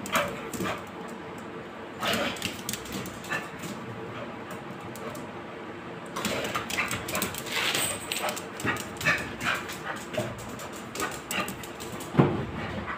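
American pit bull terrier whining and giving short barks during rough play, in short bursts that come more often in the second half.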